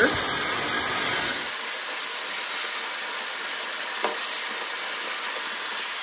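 Dyson Supersonic hair dryer blowing steadily on its highest heat and airflow settings: an even rushing hiss of air.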